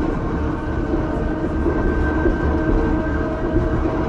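Ueda Kotsu Moha 5253 round-window electric car running between stations. Its motors and gears give a steady whine that holds one pitch over the rumble of the wheels on the rails.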